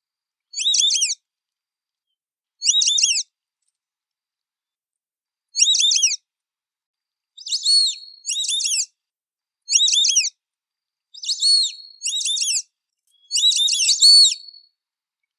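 White-faced whistling duck (irerê) giving its high, clear whistled call, a quick run of falling notes, repeated about every one to two seconds; in the second half the calls come closer together and overlap, as more than one bird calls.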